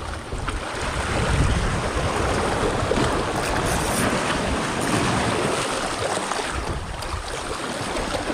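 Steady rushing noise of sea waves with wind buffeting the microphone.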